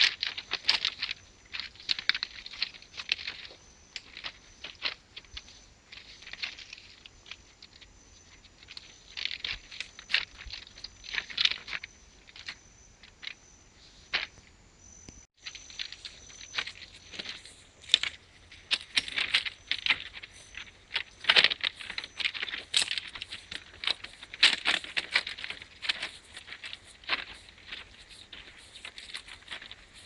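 Footsteps crunching on the loose stone ballast of a railway track, an irregular stream of short gravelly crunches, several a second.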